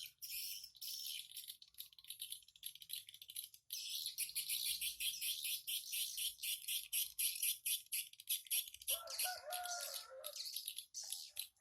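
Swiftlets twittering: a dense, fast stream of high-pitched chirps, briefly breaking off a little before four seconds in. About nine seconds in, a lower call with a few held notes sounds over it for about a second and a half.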